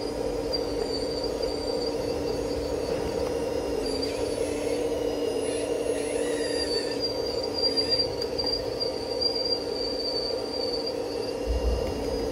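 Radio-controlled Liebherr 954 model excavator working: a steady whine of its small electric motors and gears, with higher whining tones that come and go and shift in pitch around the middle as its functions move.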